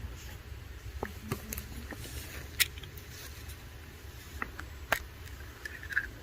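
A low steady rumble with scattered sharp clicks and taps, the two loudest about two and a half and five seconds in.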